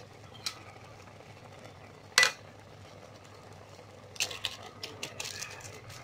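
A single sharp knock about two seconds in, then bursts of crisp rustling and tapping from the masala sachets being shaken and emptied over a pan of simmering instant noodles.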